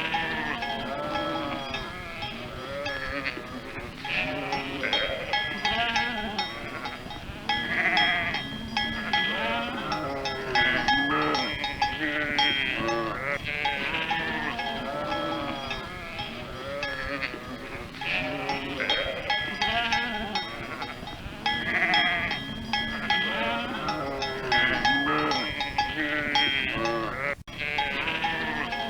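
A flock of sheep bleating over and over, many calls overlapping, while the sheep bells ring and clank. The sound cuts out for a moment near the end.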